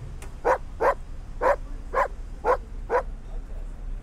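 A dog barking, six short barks in quick succession, about two a second.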